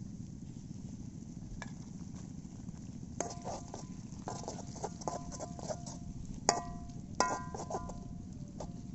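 A metal spoon clinking and scraping against a metal cooking pot, each knock leaving a brief ring; the taps start about three seconds in, and two louder knocks come past the middle. A steady low rumble runs underneath.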